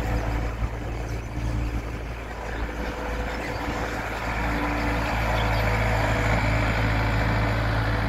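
John Deere 320 skid steer's diesel engine running steadily as the tracked loader drives and turns. Its engine note dips a little early on and swells slightly later.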